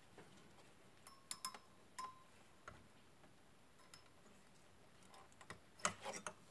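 Faint, scattered clicks and light taps of small parts being handled by hand, two of them with a brief ringing tone about one and two seconds in, and a quick cluster of clicks near the end.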